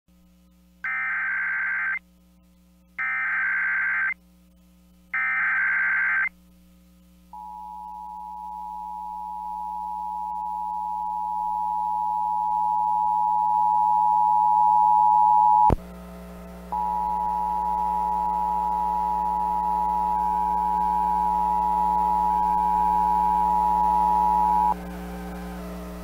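Emergency Alert System broadcast opening: three one-second bursts of SAME header data, then the EAS two-tone attention signal, a steady dual tone that grows louder for about eight seconds, breaks off with a click near sixteen seconds and returns for about eight seconds more. A low steady hum runs underneath.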